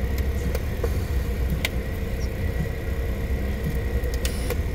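Car engine running, heard inside the cabin as a steady low rumble with a faint hum, with a few small sharp plastic clicks from chapstick tubes being handled.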